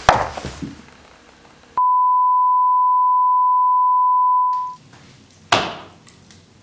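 Test-card tone of a broadcast interruption: one steady beep at a single pitch, cut in abruptly about two seconds in and lasting about three seconds. It is preceded by a brief clatter and followed by a single sharp knock.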